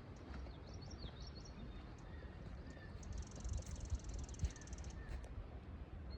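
Outdoor ambience: small birds chirping with short up-and-down calls in the first second or so, and a high buzzing trill from about three to five seconds in, over a low rumble.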